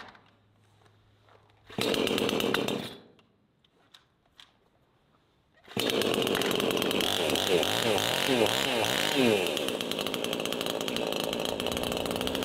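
New Proyama 68cc two-stroke chainsaw being pull-started: a burst of about a second on an early pull, then the engine catches about six seconds in and keeps running. It is revved up and down a few times, then settles into a steady idle.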